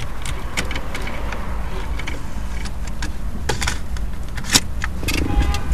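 Steady low rumble of a car's engine heard inside the cabin, with several sharp plastic clicks from the car stereo's buttons being pressed and a cassette tape being ejected from the deck; the loudest click comes about four and a half seconds in.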